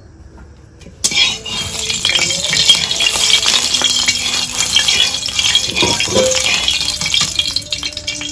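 Hot oil sizzling and crackling in a kadai, starting suddenly about a second in, with a metal spatula stirring and clinking against the pan.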